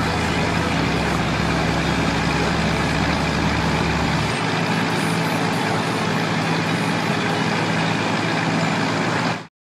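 City street traffic noise: a steady wash of passing vehicles with an engine hum underneath, the lowest rumble dropping away a little under halfway through. It cuts off suddenly near the end.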